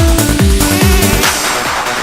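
Electronic dance music in a trance style: a steady kick drum about every half second under a pitched bass line. About halfway through, the kick and bass thin out as a rising hiss sweeps in.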